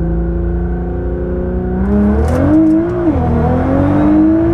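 Nissan GT-R's twin-turbo V6 cruising steadily, then accelerating hard from about two seconds in: the engine note rises, dips at an upshift a second later, and rises again through the next gear.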